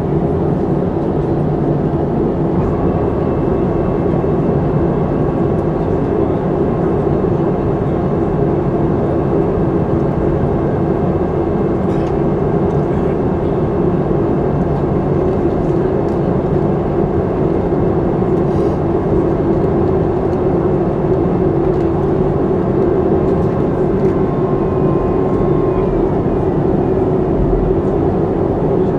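Boeing 737-300 heard from inside the passenger cabin: its CFM56 jet engines run steadily at low power, a constant whooshing hum with no spool-up, typical of taxiing.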